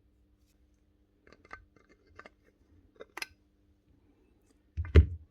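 Light, sharp clicks of small metal and plastic parts of a pneumatic pin nailer's trigger valve being handled while a broken O-ring is worked out. One much louder knock comes near the end.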